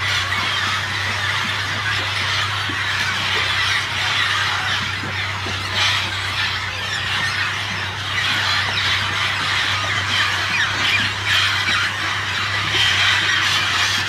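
Large flock of parrots screeching and squawking together in a dense, unbroken chorus of overlapping calls. A steady low hum runs underneath.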